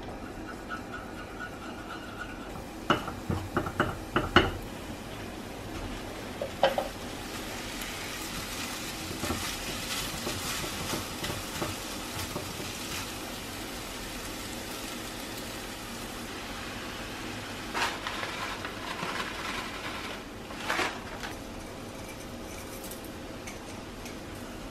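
Stir-frying in a wok: egg and rice vermicelli sizzling gently while a spatula stirs and scrapes the pan. A quick run of sharp knocks on the pan comes about three seconds in, with more knocks later on.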